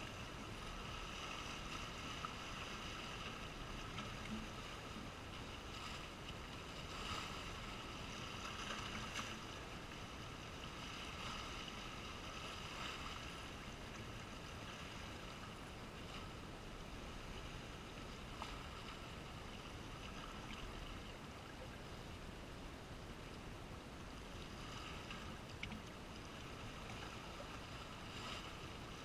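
Small sea waves washing and splashing against shoreline rocks, a steady wash that swells a little now and then.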